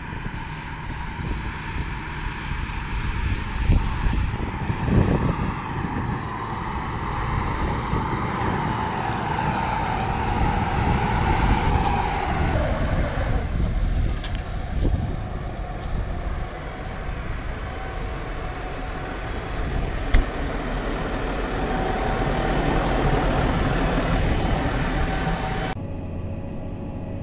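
Fendt 939 Vario tractor's six-cylinder diesel running under load while pulling a strip-till toolbar. It comes close and goes past, its whine dropping in pitch as it passes about halfway through.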